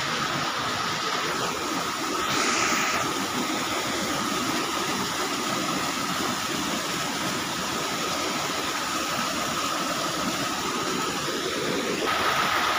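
Stream water rushing steadily over a weir, an even loud rush of water, with a thin steady high tone over it.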